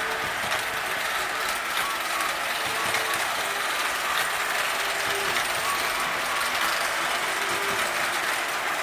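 Small three-rail O-gauge toy trains running around the layout: a steady mechanical whir of the small motors and gearing, with a fine clatter of wheels over the tinplate track.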